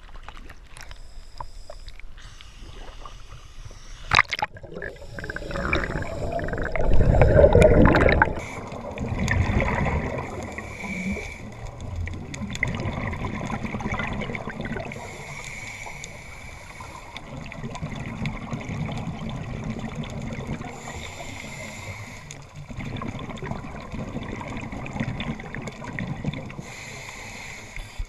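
Scuba regulator breathing underwater: hissing breaths that come about every six seconds, with bubbling rumbles of exhaled air and steady water noise. The loudest bubbling comes about a quarter of the way in.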